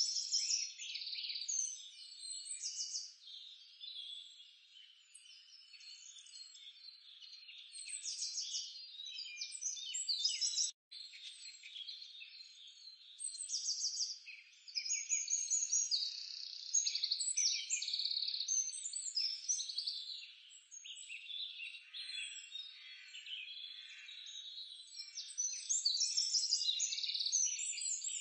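A chorus of small birds chirping and trilling, many high-pitched calls overlapping without pause. The sound cuts out for a moment about eleven seconds in.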